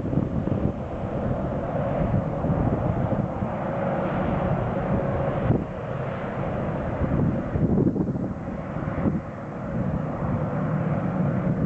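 Passenger airliner's engines running loudly as the aircraft lands or takes off, with a steady engine tone for a couple of seconds in the middle.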